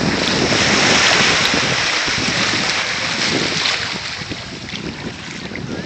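Small waves washing in the shallow surf, with wind rushing on the microphone; the noise eases off after about four seconds.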